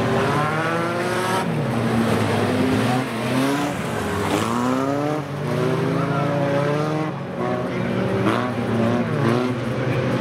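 Several race car engines revving hard together on a dirt speedway track, their notes rising and falling as the cars accelerate and back off.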